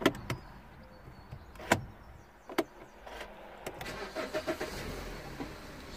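Cabin sound of a BMW E90 being started: a few sharp clicks from the key and ignition, then about four seconds in the engine starts and runs at a low level.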